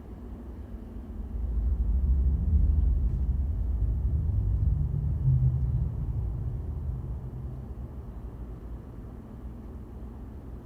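A deep, low rumble that swells about a second and a half in, holds for a few seconds and slowly fades away.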